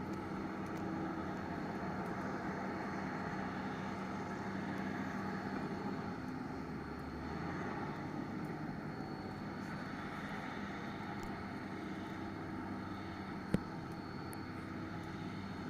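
Doosan DX225LCA excavator's diesel engine running steadily, with one sharp click about thirteen seconds in.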